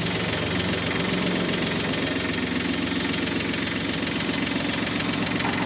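Yanmar 3T72 three-cylinder diesel engine of an eight-wheel mini dumper running steadily.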